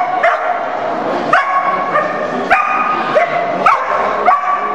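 A dog barking repeatedly, sharp high barks roughly every half second to a second, echoing in a large hall.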